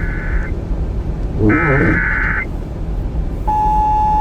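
NOAA Weather Radio Emergency Alert System (SAME) header: two roughly one-second bursts of warbling digital data tones over radio static and hum. About a second after the second burst, the radio's long steady warning alarm tone begins, signalling that an alert is about to be read.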